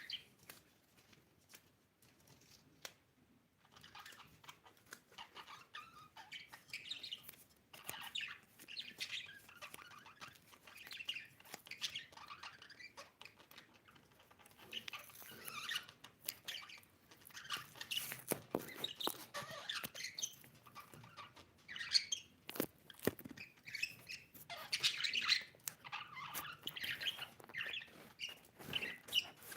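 Budgerigar chirping and warbling in irregular bursts, with scattered sharp clicks; only a few clicks in the first few seconds before the chirping starts.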